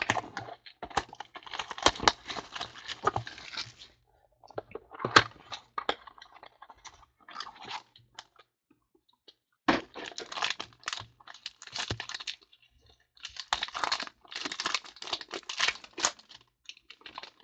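Trading card packaging being torn open and crinkled, with cards handled and shuffled, in four spells of rustling and clicking separated by short pauses.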